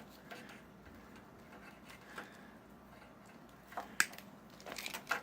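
Faint handling noise as computer wiring is pulled and torn apart by hand: light rustles, then a few sharp clicks and snaps near the end.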